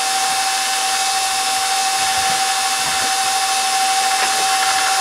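KitchenAid stand mixer running steadily, its motor giving a constant whine as the flat paddle beats creamed butter, sugar and egg into cookie batter in the steel bowl.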